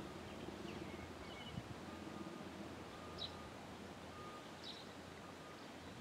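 Faint outdoor ambience: a few short bird chirps and a soft note repeating about once a second, over a low wind rumble.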